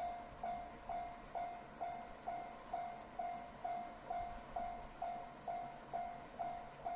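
Japanese level-crossing alarm ringing its repeated warning ding, about two strokes a second, each stroke a single pitched tone that fades quickly, signalling that a train is approaching.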